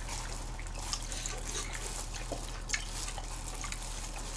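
Wet, close-up chewing and mouth sounds of people eating, with small scattered clicks, over a steady low hum.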